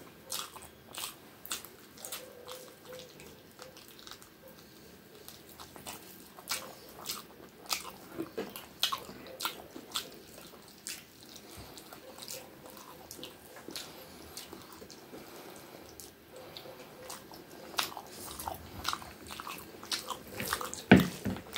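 Close-miked eating by hand: a person chewing mouthfuls of rice and curry, with irregular wet smacks and clicks of the mouth that get louder and more frequent near the end.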